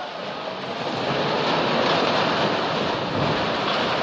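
Steady loud rush of fast-flowing floodwater, building slightly in the first second, with wind noise on the microphone.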